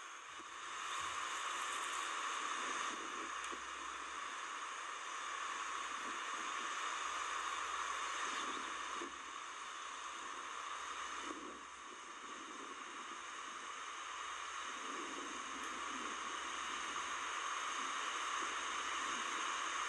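Steady faint outdoor hiss, like distant rushing water or air, with slow swells in level and no distinct events.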